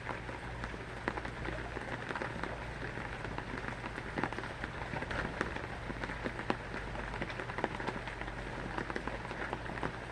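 Rain falling steadily on a surface: a constant hiss with many separate drop hits, over a steady low hum.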